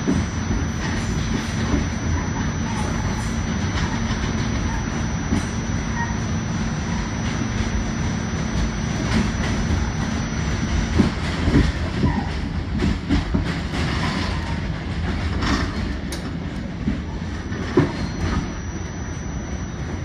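R46 subway train running on elevated track, heard from inside the rear car: a steady rumble of wheels on rail with a hum that drops out a little past halfway. A run of sharp clacks comes a little past halfway, as the wheels cross rail joints and switches, with one more clack near the end.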